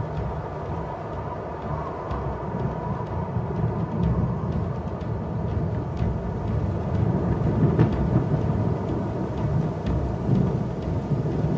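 Storm wind blowing over open grassland with a deep, continuous rumble of thunder as a storm approaches.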